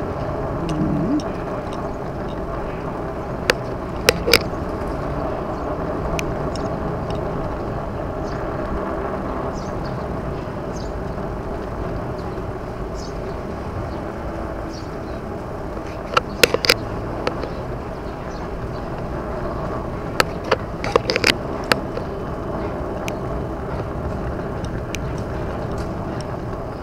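Steady rushing road and wind noise of a fat bike being ridden, broken by sharp clicks and rattles in small clusters a few seconds in and twice more past the middle.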